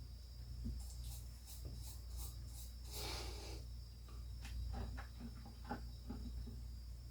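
Small plastic toy-car parts being fished out of degreaser and handled by hand. First comes a run of quick scratchy strokes, then a short hiss about three seconds in, then light clicks and taps, all over a steady low hum.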